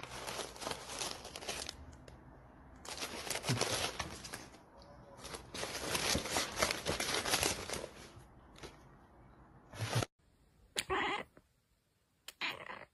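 A cat rummaging in an open cardboard tea box, rustling and crinkling the box and the packets inside in several bursts. After a sudden break, a cat gives two short meows about a second and a half apart.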